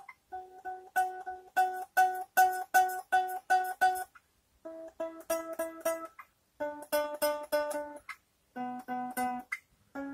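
Squier Stratocaster electric guitar, one string plucked note after note while it is fretted up the neck, in short runs of about three notes a second with brief pauses between them. The notes are played to check the string height for fret buzz while the saddles are being set.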